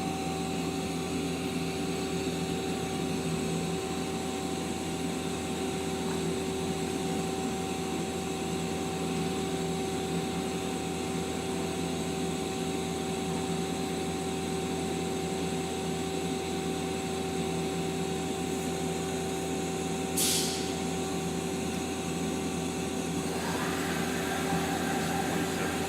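Mazak Quick Turn Nexus 200MS CNC turning center running, with its sub spindle spinning under power: a steady machine hum with a steady whine. A short hiss comes about twenty seconds in.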